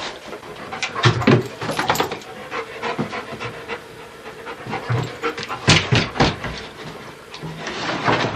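A dog panting in quick, irregular breaths.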